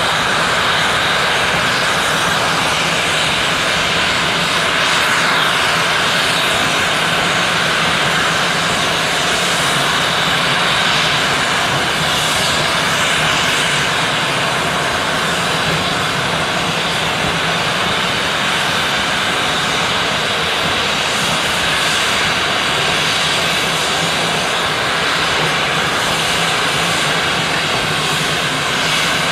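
Steam locomotive letting off steam: a loud, steady hiss and roar of escaping steam that holds without a break.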